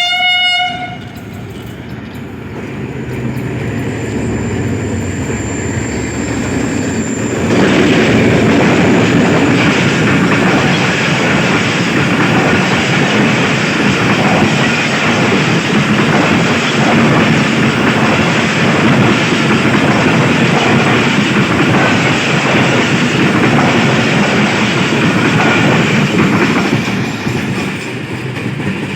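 Mehran Express passenger train passing close by: the locomotive's horn cuts off about a second in, then the rumble builds and, from about eight seconds in, the wheels clatter loudly over the rails as the coaches go by, easing near the end.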